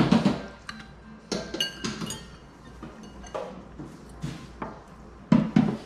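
Metal forks clinking and knocking against ceramic bowls and plates during a meal: a string of separate clinks, some with a short ring, the loudest two close together near the end.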